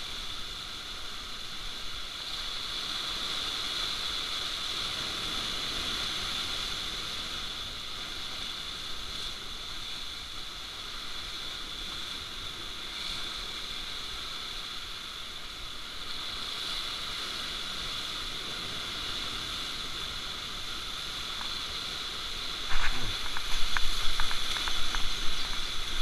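Surf washing over shore rocks, a steady hiss of breaking waves. About three seconds before the end comes a run of loud, sharp clicks and knocks, close to the microphone.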